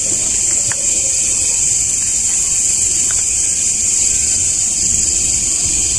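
Steady high-pitched hiss with two faint ticks.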